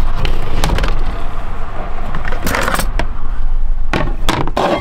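A wooden cupboard being opened and kitchen things being handled, with several knocks and clatters, including a plastic chopping board being taken out and set down near the end. A loud steady rumble runs under it all.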